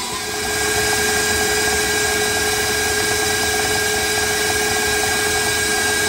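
KitchenAid stand mixer running steadily with an even motor whine, its paddle attachment creaming softened butter; it gets a little louder about half a second in.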